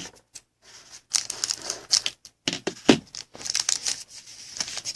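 A trading card pack being opened: its wrapper tears and crinkles in irregular spells of crackling, with a few sharp clicks.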